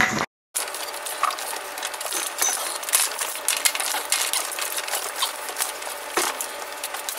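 Wooden fence boards being handled and set down: a run of light, irregular clicks and clatter with a few sharper knocks.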